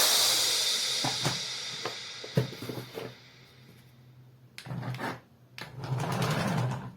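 Background music fading out over about three seconds, then a short near-silent gap with a few faint knocks and a low hum before the music returns.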